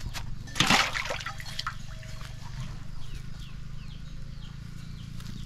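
A fish dropped into a large metal pot of water: one loud splash just under a second in, followed by a few smaller splashes.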